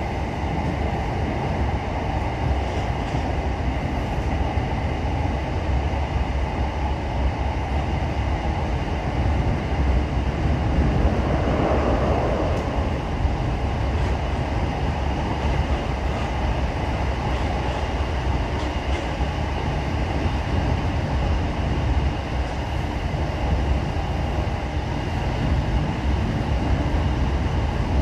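Class 455 electric multiple unit running at speed, heard from inside the passenger carriage: a steady rumble of wheels on rail, with a brief swell a little before halfway.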